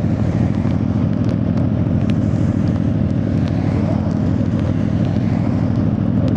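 Suzuki GSX-R1000R's inline-four engine running at a steady speed, with its pitch and loudness holding even.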